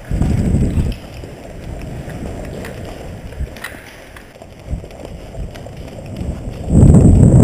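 Low rumbling buffeting on a body-worn camera's microphone from a player on the move, loudest briefly at the start and again near the end, with a few faint clicks in between.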